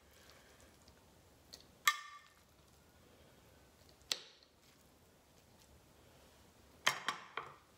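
Metal spoon clinking against a glass dish and a small bowl while muesli is spooned out: one clink with a brief ring about two seconds in, another about four seconds in, and a quick run of clinks near the end.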